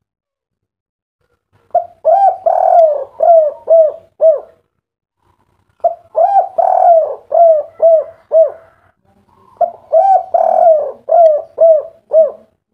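Spotted dove (derkuku/tekukur) cooing its song three times, each phrase a run of rising-and-falling coos ending in about three short, clipped 'kuk' notes, the 'kuk 3' song style.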